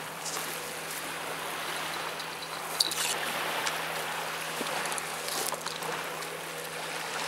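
Small waves washing on the shore, an even hiss, with a steady low hum underneath and a few light clicks about three seconds in.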